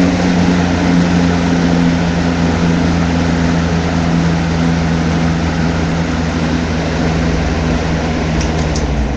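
Old Toastmaster 3-speed box fan running and settling to its low setting: a steady electric-motor hum over the rush of air from the blades, gradually getting quieter, with the hum dropping out near the end. It is a noisy fan.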